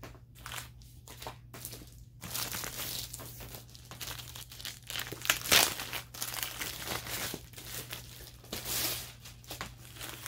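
Crinkling and rustling of a diamond painting kit's packaging being handled and unwrapped, with a few light clicks in the first couple of seconds and a sharper crackle about five and a half seconds in.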